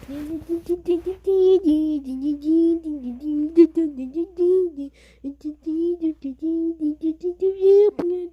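A child's high voice singing a wordless tune in short notes, with a sharp click near the end.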